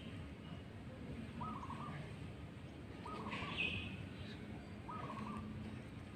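A bird calling outdoors: three matching short calls about a second and a half apart, with a higher, brighter call between the second and third, over a steady low background hum.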